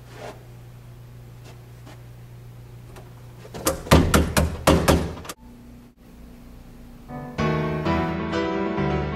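A quick run of about six heavy thumps, close together, about four to five seconds in. About seven seconds in, piano music starts and plays on.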